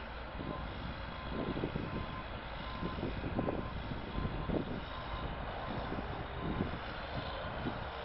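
Crawler bulldozer's diesel engine running steadily as the dozer pushes dirt with its blade, with irregular swells in loudness.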